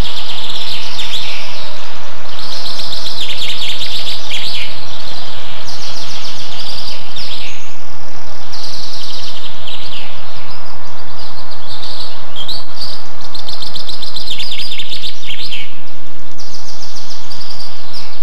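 Rapid, high chirping trills from birds or insects in a nature ambience, repeated in bouts of a second or two over a steady hiss.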